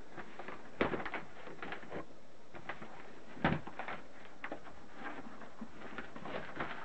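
Newspaper sheets rustling and crinkling as they are spread out and handled, with the crackle of a plastic sawdust bag, in scattered short bursts; a louder thump-like rustle comes about three and a half seconds in.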